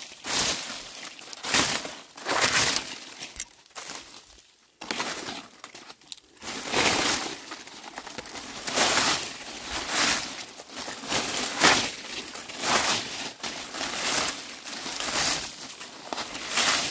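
Dry leaves being swept with a broom: rhythmic scratchy strokes about one a second, with a brief pause about four seconds in.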